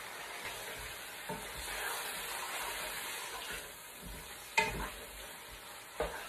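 Raw chicken pieces frying in hot oil and onion masala in a non-stick wok, a steady sizzle, as the chicken is being browned. A wooden spoon stirs them, knocking against the pan three times, loudest a little past halfway.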